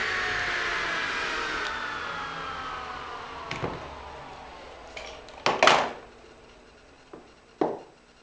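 Table saw coasting down after being switched off, its whine falling steadily in pitch and fading over several seconds. A few sharp knocks from wood being handled follow, the loudest about five and a half seconds in.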